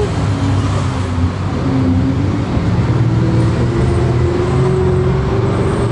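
A city bus, heard from inside, driving along with its engine running steadily. Over the last few seconds a whine slowly rises in pitch.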